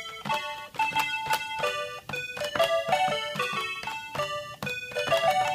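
Calculator rigged so that its buttons play musical notes, sounding a quick melody note by note in electronic keyboard-like tones, about three or four notes a second.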